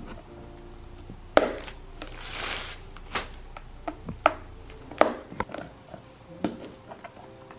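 Metal lid of a gallon paint can being pried open at the rim: a string of sharp, separate clicks and knocks, with a short rustle of plastic a little after two seconds in.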